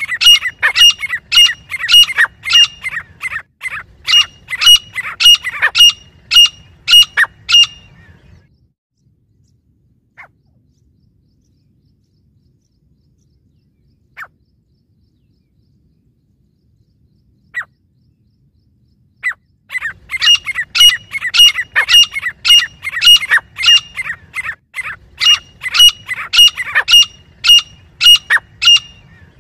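Grey francolin calling: a loud, rapid run of shrill repeated notes, about two a second, each with a high ringing note over a falling rasp. The calling stops about eight seconds in, leaving a long gap with only a few faint single chirps, then starts again near twenty seconds.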